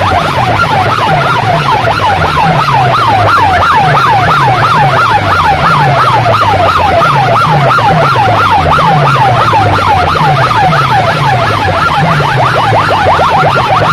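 A tower of horn loudspeakers blasting a siren-like electronic effect: a falling sweep repeated about three times a second over a repeating stepped bass line, very loud and unbroken.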